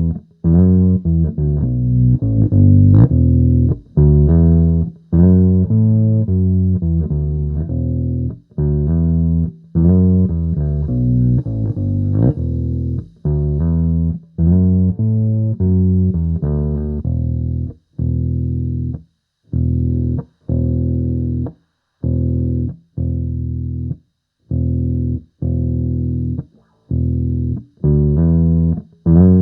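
Electric bass played through a Sonicake B Factory bass preamp on its clean preamp and EQ channel: a riff of plucked notes. In the second half the notes turn short and detached, with brief silences between them.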